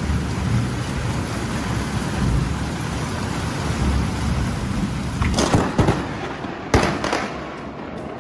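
Thunderstorm: steady rain with low rumbling thunder, then sharp cracks of close thunder a little past halfway, one more about a second later.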